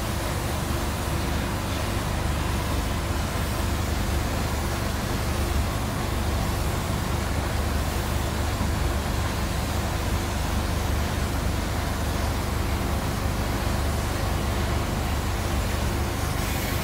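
Steady rushing hiss over a low rumble: a spray gun's compressed air and the spray booth's ventilation, running evenly.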